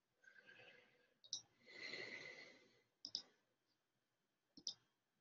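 Computer mouse clicking in a quiet room: three sharp double clicks about a second and a half apart, with soft hiss-like noise between the first two.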